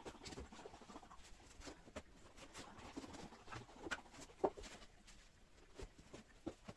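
Shoes being pulled off the metal shelves of a fabric-covered shoe rack: scattered light knocks, taps and rustles, a few a second, the sharpest a little past the middle, played back sped up.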